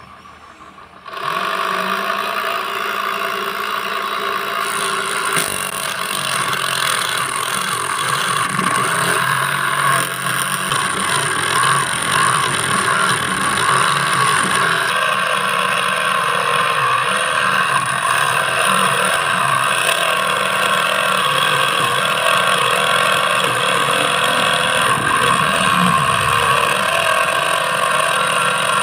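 Homemade mini cutting machine, a salvaged DC motor driving a thin saw blade, switches on about a second in and then runs steadily as the blade cuts into a thin aluminium plate.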